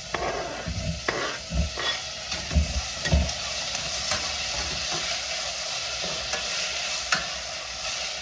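Diced onion and bell pepper sizzling in a stainless steel pot, a steady hiss, while a utensil stirs and knocks against the pot several times in the first three seconds or so as the diced tomato goes in.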